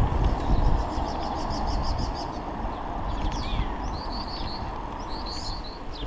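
Small birds chirping and singing over a steady low rumble of wind and rolling tyres from a moving mountain bike: a quick trill of about ten notes near the start, falling whistles about three seconds in, then clusters of chirps.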